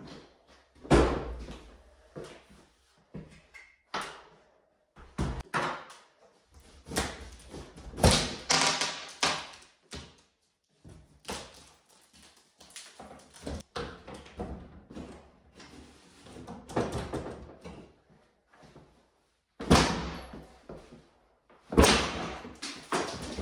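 Hand demolition of a framed-in closet with a pry bar: irregular knocks, cracks and bangs as boards and a wooden door panel are worked loose, some bangs much louder than the rest.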